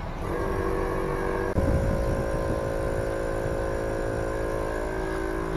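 VIAIR 450p-RV portable air compressor running steadily as it inflates a heavy motorhome tire. It starts just after the beginning as an even motor hum, and about a second and a half in its pitch steps slightly lower with a soft knock.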